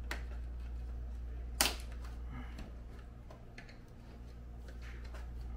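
Plastic clicks and snaps as the Snoo bassinet's mesh liner edge is pressed by hand into its frame rim and engages: one sharp snap about a second and a half in, then several lighter clicks. A steady low hum runs underneath.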